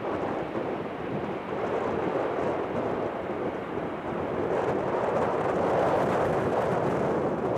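Airbus A380's four Rolls-Royce Trent 900 jet engines at take-off thrust as the airliner lifts off and climbs away: a steady, deep jet roar that grows louder about halfway through.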